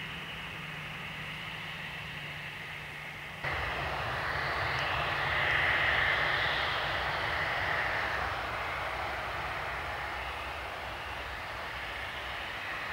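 Dassault Falcon 2000EX business jet taxiing, its twin Pratt & Whitney Canada PW308C turbofans running with a steady whine. About three and a half seconds in the sound steps up suddenly, swells for a few seconds, then eases off.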